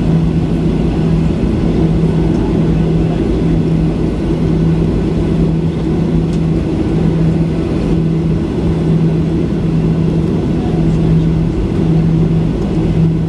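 Cabin noise inside a Boeing 737-800 taxiing: a steady rumble and hiss from the jet engines at taxi power and the cabin air. A low hum in it breaks off briefly about once a second.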